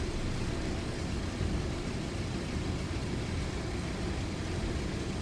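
Steady low rumbling room noise of an indoor pool hall, with no distinct events.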